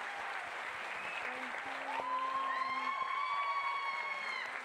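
Audience applauding. From about halfway through, a long, steady high-pitched sound is held over the clapping.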